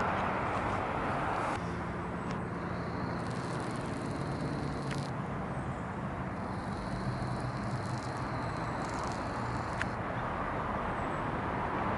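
Outdoor background noise with a steady low engine hum from a motor vehicle, and a few faint clicks.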